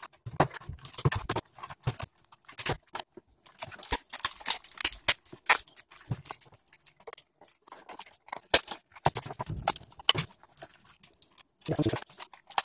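Black plastic casing of an HP 8-cell laptop battery pack being cracked and pried apart by hand, giving irregular sharp clicks, cracks and scraping, with the 18650 cells inside knocking as they are worked loose.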